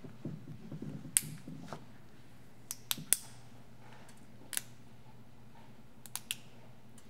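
Small parts of an LCD projector's optical block being snapped and prised apart with a hand tool to free the prism: about eight sharp clicks and snaps, irregularly spaced, the loudest about a second in and again about three seconds in, with faint handling noise in the first second and a half.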